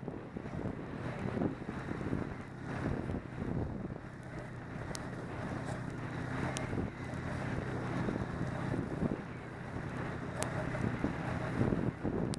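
Snowmobile engine running steadily at cruising speed, close to the microphone, with wind buffeting the microphone.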